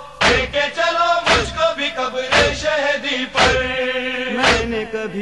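Male voices chanting a nauha lament without instruments, with a heavy thump about once a second keeping time, the beat of matam chest-beating.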